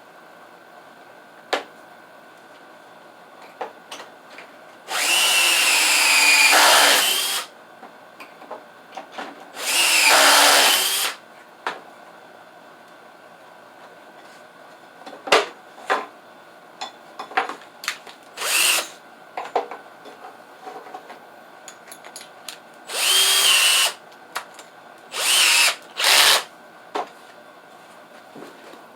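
Power drill run in five short bursts, the longest about two and a half seconds, its motor whine shifting in pitch as it spins. Small knocks and clicks of wood and tools being handled come between the bursts.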